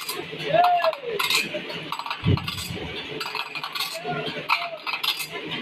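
Sawmill saw-sharpening machine working: irregular sharp metallic clinks over a steady scraping hiss, with a few short tones that rise and fall.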